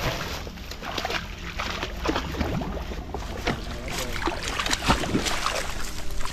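A pit bull wading and paddling through shallow river water among branches, its body churning the water into irregular splashing and sloshing.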